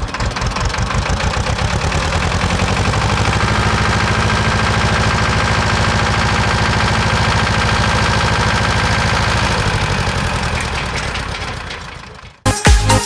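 Tractor diesel engine running steadily. It grows louder over the first few seconds, holds, then fades away near the end.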